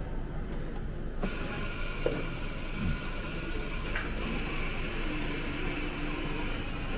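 A steady mechanical whir that starts abruptly about a second in.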